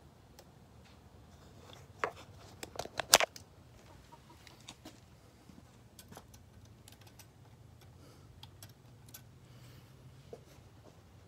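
A quick run of sharp clicks and knocks about two to three seconds in, then scattered faint ticks, over a faint low hum.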